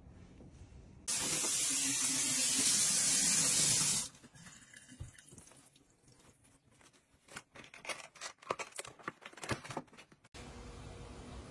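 A kitchen tap runs hard into a sink for about three seconds, washing strawberries in their plastic clamshell. After that comes a run of irregular crackles and clicks as the plastic clamshell and a paper towel are handled.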